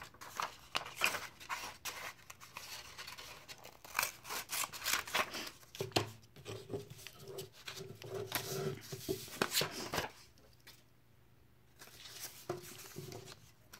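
Scissors snipping through a sheet of black paper, with repeated sharp cuts and paper rustling for about ten seconds. After a short pause, the paper is handled near the end.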